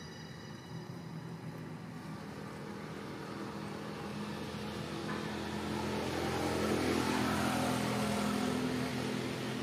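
A motorbike passing: its engine grows louder to a peak about seven seconds in, then starts to fade.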